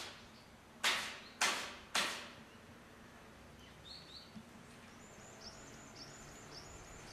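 Three loud, sharp bangs about half a second apart in the first two seconds, each dying away quickly. From about four seconds in, a small bird calls with short, high chirps, about two a second.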